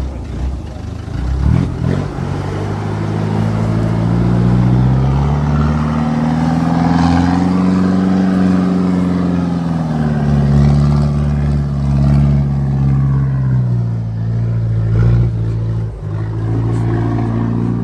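Off-road 4x4's engine revving under heavy load as it climbs a steep, rough slope: the pitch rises over several seconds, holds, then eases off and surges again, with a few knocks near the end.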